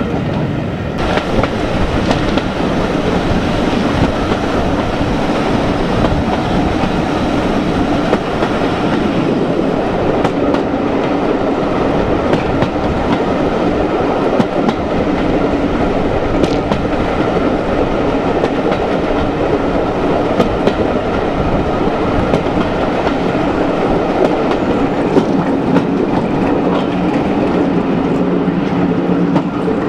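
Heritage passenger train running behind a Class 26 diesel locomotive: a steady rumble with the clickety-clack of coach wheels over rail joints. The rush of the moving train is heard through an open coach window and grows louder about a second in.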